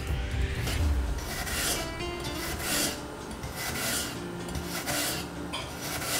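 Knife slicing thin slices off a peeled apple half on a wooden cutting board. Each stroke gives a short, crisp scrape through the flesh, repeated about once a second.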